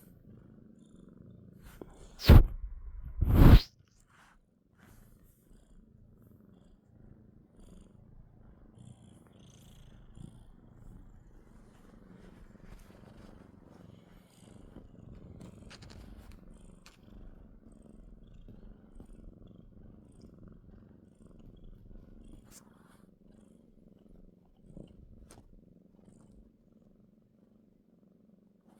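Domestic cat purring steadily, recorded close up. Two loud bumps about two and three seconds in.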